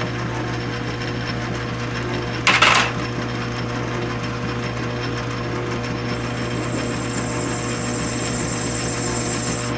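South Bend 9-inch metal lathe running with a steady motor hum while a turning tool takes a gentle cut at the edge of an aluminium bar. There is a brief loud clatter about two and a half seconds in, and from about six seconds a high-pitched whine from the cut.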